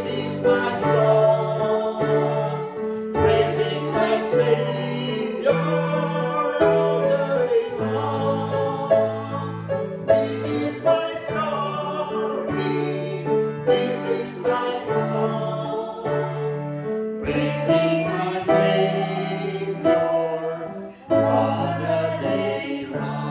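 A small group of men and women singing a gospel song together to piano accompaniment.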